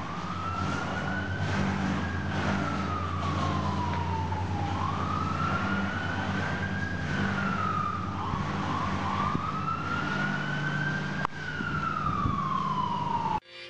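Emergency-vehicle siren in a slow wail, its tone rising and falling three times over a steady low hum; it cuts off suddenly near the end.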